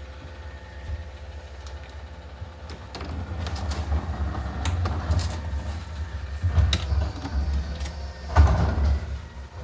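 A sliding window's screen being worked out of its channel: scattered clicks, knocks and scraping of the screen frame against the track, loudest twice in the second half, over a steady low rumble.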